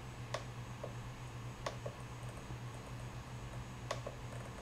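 A handful of short, sharp clicks from a RadioMaster TX16S radio transmitter's buttons and switches being worked while a switch is programmed, two of them in quick pairs, over a steady low hum.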